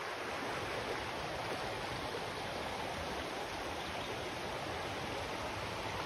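Clear, shallow creek rushing over a rocky bed: a steady, even sound of running water.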